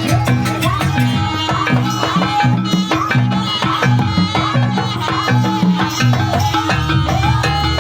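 Live Banyuwangi jaranan music: drums keep a steady repeating rhythm under a melody that slides up and down, and a deep low note comes in near the end.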